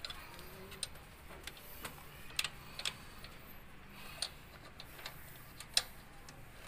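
Light metallic clicks and ticks, about half a dozen at uneven intervals, as the alternator's belt-adjusting bolt is turned clockwise by hand to start tensioning a new serpentine belt.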